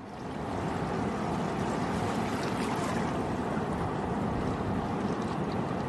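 Steady sea ambience: a constant wash of water with some wind, fading in at the very start.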